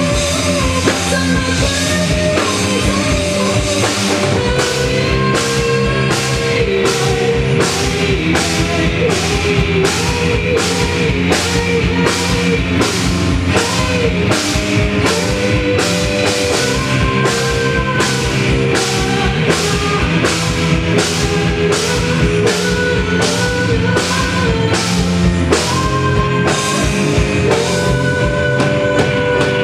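Live rock band playing an instrumental passage with no vocals. The drum kit keeps a steady beat of about two strokes a second under sustained melody lines, and the cymbals cut off right at the end.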